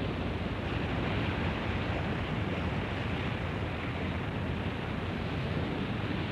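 Steady rush of open sea and wind: water surging along a warship's hull as its bow drives through the waves.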